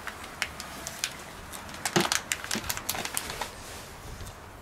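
A small plastic spice bag of caraway crinkling and crackling in the hand as it is pried open and tipped over the pot, in irregular sharp clicks that thin out after about three and a half seconds.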